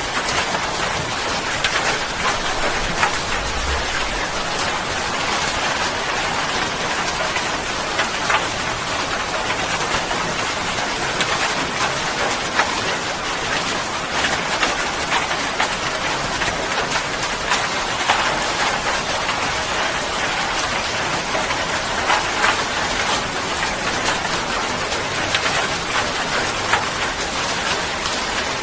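Steady, even rainfall hitting a surface, with many separate drops ticking through the constant patter.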